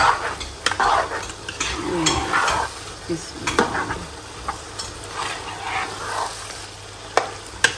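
A spoon stirring and scraping a thick turnip-and-meat curry in a pot as it fries down in oil, with sizzling and sharp knocks of the spoon against the pot at irregular intervals.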